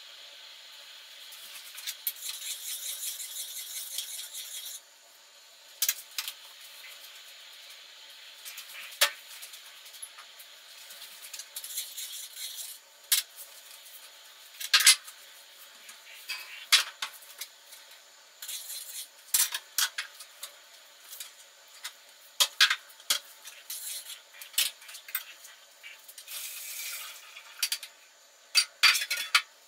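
Dishes, pots and cutlery clinking and clattering as they are handled at a kitchen counter and sink, with many separate sharp knocks. A steady rushing hiss runs for about three seconds near the start and again briefly near the end.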